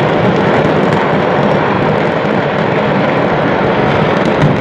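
Stock of fireworks in a burning fireworks market going off in a chain reaction: a loud, steady rumble packed with rapid crackling pops.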